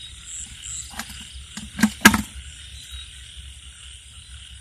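Night chorus of insects and frogs calling steadily. Over it, about one to two seconds in, come four short knocks, the last the loudest: a plastic basket and a wooden plank being set over a bucket as a lid.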